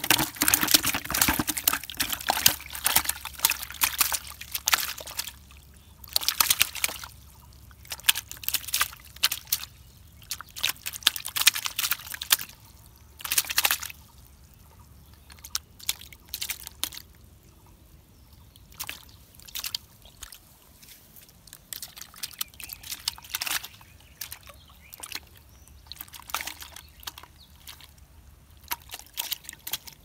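A freshly caught fish thrashing and splashing in a plastic bucket of water. The splashing comes in bursts, heaviest in the first few seconds, then in shorter, sparser spells.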